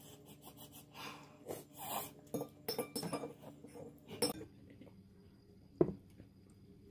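A fork clinking and scraping against a plate, with a drinking glass handled, in small scattered clinks through the first four seconds. It then goes quieter, with one sharp click near the end.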